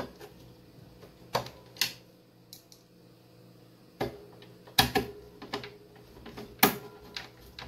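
Scattered sharp clicks and knocks of parts being handled and fitted back into an electronic receiver's chassis, a handful spread over several seconds.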